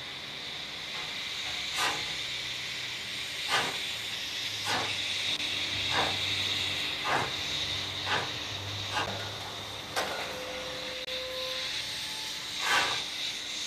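DSB class F 0-6-0 steam tank locomotive 654 working slowly, its exhaust chuffs coming about once a second over a steady steam hiss.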